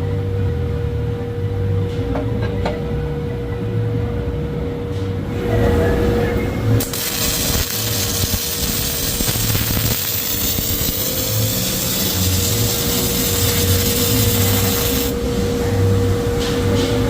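Robotic welder's arc crackling and hissing, starting suddenly about seven seconds in and cutting off sharply about eight seconds later, over a steady machine hum and low rumble.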